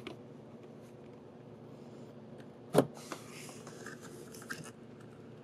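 One sharp plastic click about three seconds in as the door handle cable end pops free of the inside door handle, followed by light scraping and rustling of plastic parts.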